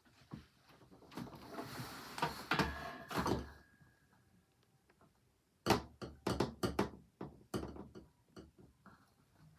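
Funko Pop box and packaging being handled: a couple of seconds of rustling and scraping with a brief squeak, then, after a pause, a quick run of sharp taps and clicks.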